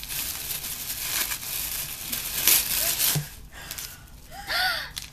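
Tissue paper crinkling and rustling as it is handled and pulled out of a gift box, dying away after about three seconds. A short rising-and-falling vocal sound comes near the end.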